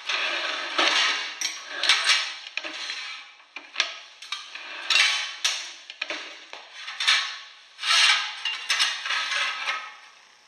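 Mild steel sheet being cut on a hand-operated notcher and handled on a metal bench top: a run of sharp metallic clanks and scrapes, several strikes a second or so apart.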